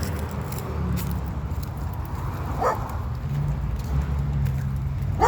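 Dogs barking: a single bark about two and a half seconds in and another sharp one at the very end, over a steady low hum.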